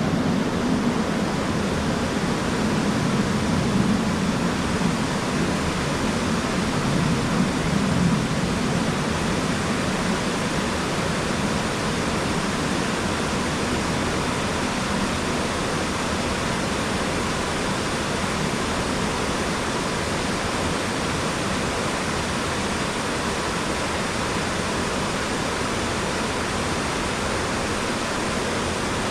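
Waterfall: a steady rush of falling water, with a fuller low rumble for the first several seconds.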